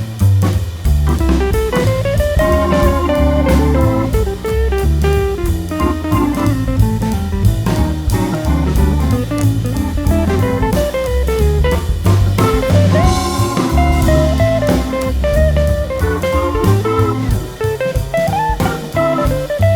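Background music: electric guitar over bass and drum kit, in a blues style with a steady beat.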